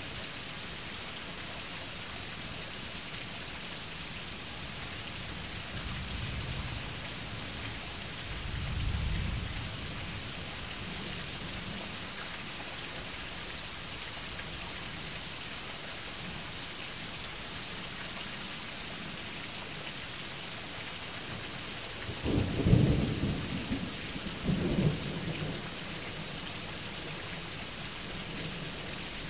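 Steady rain falling through a thunderstorm. Low rumbles of thunder come about six and nine seconds in, then a louder, sharper thunderclap about twenty-two seconds in, with a second burst of thunder a couple of seconds later.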